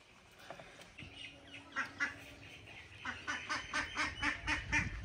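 A bird calling: two calls about two seconds in, then a quick run of short calls, about five a second, through the last two seconds.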